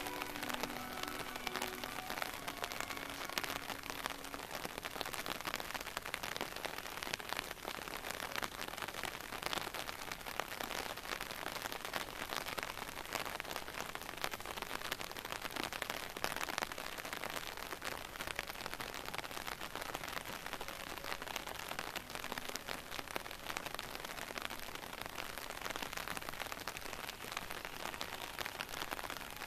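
Steady rain falling on paved ground, a dense, even patter of drops. Faint music fades out in the first few seconds.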